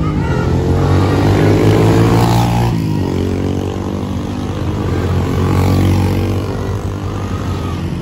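Vehicle engines running under load as a tour bus pulls out and motorcycles pass close by. Over a steady low drone, an engine note rises for about three seconds and drops off sharply, then climbs again.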